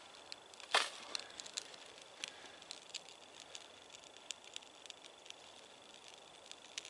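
Small kindling fire of birch bark and fatwood crackling, with scattered sharp pops and one louder crack about a second in.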